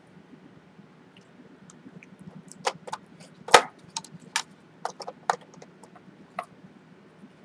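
Small plastic parts being handled: a servo pressed into its pocket in the wing and a hot glue gun brought against it. A run of a dozen or so short, sharp clicks and knocks, the loudest about three and a half seconds in.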